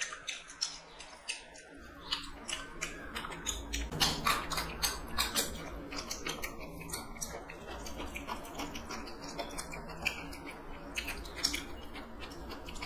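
Close-up eating sounds: two people chewing rice and chicken curry eaten by hand, with wet mouth clicks and smacks coming irregularly, and fingers working the rice on steel plates.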